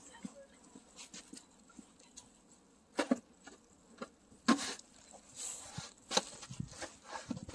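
Footsteps crunching in wet, slushy snow: a few short, irregular crunches starting about three seconds in.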